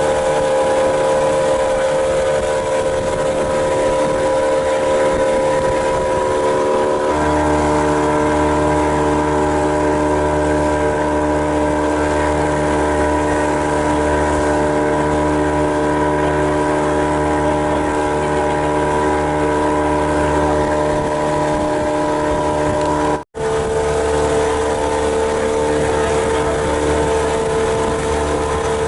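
Motorboat engine running steadily. Its note changes about seven seconds in, and the sound breaks off for an instant about twenty-three seconds in.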